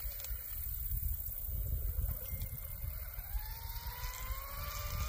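The brushless electric motor of a radio-controlled outrigger race boat whines at a distance, its pitch rising steadily from about three seconds in as the boat speeds up. Wind rumbles on the microphone throughout.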